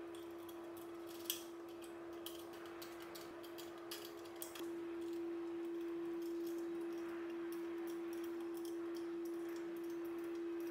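Small metallic clicks and taps of a hex key and bolts working the mounting brackets of LED light bars, one sharper click about a second in. A steady hum runs under them throughout.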